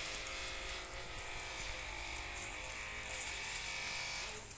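The 7 HP petrol engine of an SMK SM350 walk-behind tiller running steadily, its sound dropping away near the end.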